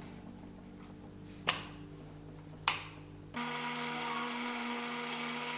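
Two sharp clicks, then an electric mixer grinder switches on about three and a half seconds in and runs with a steady motor whine. It is grinding chopped onion, tomato, curd, spices and water into a paste.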